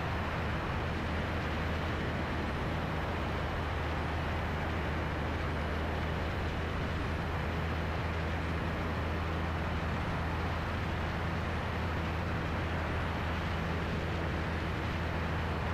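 Cessna 177RG Cardinal's four-cylinder Lycoming engine and propeller running at low approach power: a steady low drone that does not change.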